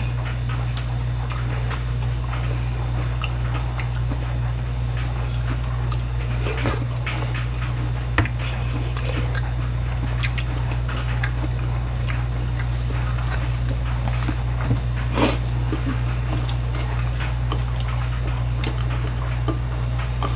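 People chewing fried sweet-and-sour pork (tangsuyuk), with scattered small crackles and clicks of utensils and a few sharper clicks. A steady low hum runs underneath.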